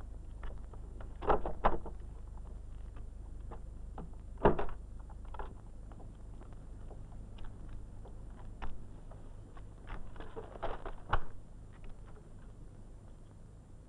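A few scattered knocks and thumps: a pair about a second in, the loudest about four and a half seconds in, and a cluster near the end, over a steady low hum.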